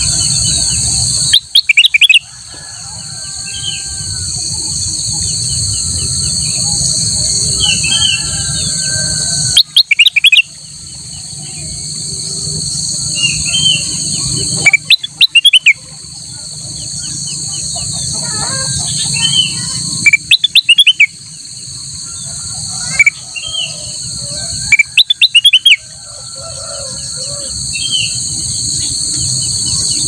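A caged kutilang emas bulbul singing close by: five loud bursts of rapid short notes, about every five seconds, with softer chirps between them. A steady high insect drone runs underneath.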